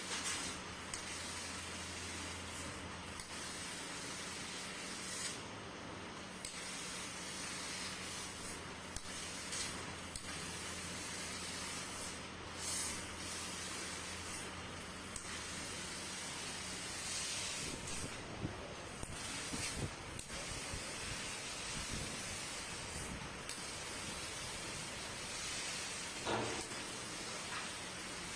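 CNC machine running: a steady hiss over a low hum. The hum drops out about two-thirds of the way through, and short rising and falling swells of hiss come and go.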